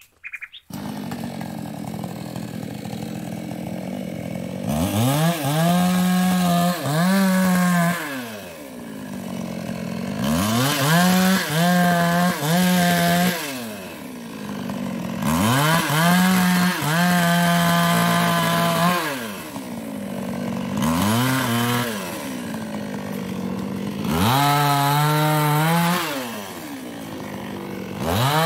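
Small gasoline chainsaw, a New West 628, revved to full throttle in about five bursts of two to four seconds each, idling between them; a sixth burst starts near the end.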